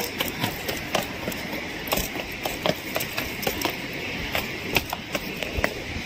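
Shoes stepping down concrete stairs at a brisk pace, about two footfalls a second, over a steady rush of falling water from the waterfall below.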